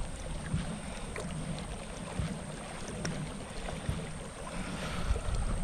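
Old Town Topwater PDL pedal-drive kayak underway: a low, steady rumble of the pedal propeller drive and water along the hull, with a few faint clicks.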